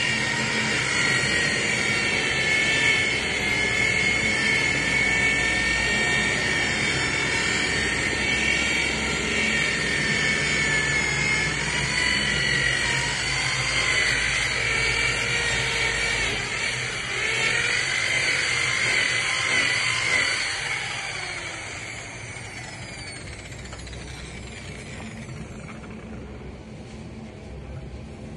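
Corded rotary polisher buffing a boat hull, its motor running with a steady whine. About three-quarters of the way through it is switched off and winds down, falling in pitch.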